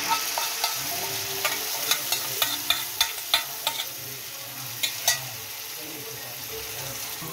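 Wet curd-and-egg marinade poured into a hot frying pan sizzles steadily. For the first five seconds or so a spoon scrapes and clicks irregularly against the steel bowl to empty it, then only the sizzling continues.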